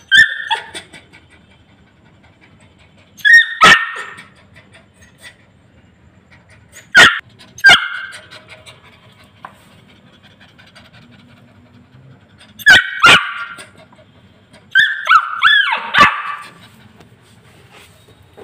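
Yellow Labrador puppy giving short, high-pitched barks and yips in bursts of one to three every few seconds.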